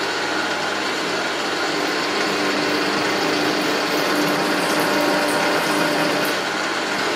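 Milling machine drilling a hole through a mild steel plate with a 21/32-inch twist drill, running steadily through the cut.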